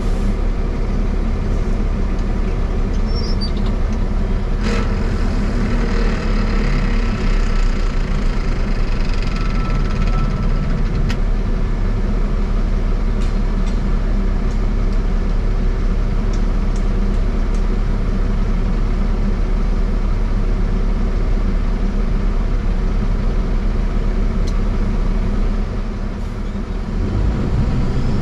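A motor vehicle's engine running steadily with road or mechanical noise, dipping briefly and changing its note near the end.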